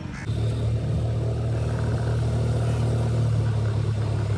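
A small motor scooter's engine running steadily, a low even drone that cuts in abruptly just after the start.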